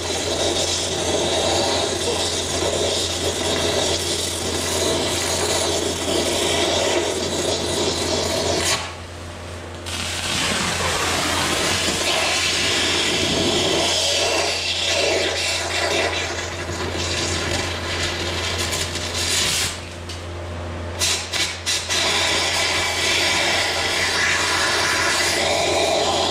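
Exothermic cutting rod (oxygen lance) burning with a steady, loud hiss as it burns out a tractor's front axle pin. The burn drops off briefly twice, about nine seconds in and again about twenty seconds in, then picks up again.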